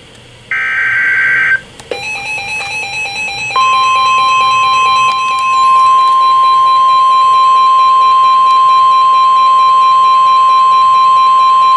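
NOAA Weather Radio emergency alert sequence. A burst of the screeching SAME data header ends about a second and a half in. A rapid beeping alarm starts at about two seconds. At about three and a half seconds the steady single-pitch 1050 Hz warning alert tone begins over the beeping and holds for about nine seconds; it is the tone that announces a warning is about to be broadcast.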